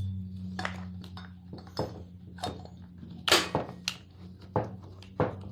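Hard engine parts knocking and clicking as the split crankcase halves of a Stihl MS211C chainsaw engine are worked apart by hand to free the crankshaft: a handful of sharp clicks, the loudest about three seconds in, over a steady low hum.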